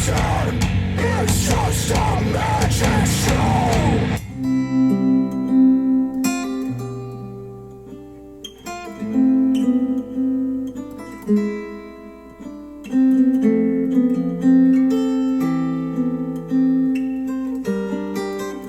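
Music played back through Focal Aria 906 bookshelf speakers: a loud, dense rock track with singing cuts off about four seconds in, and a plucked acoustic guitar piece follows, note by note.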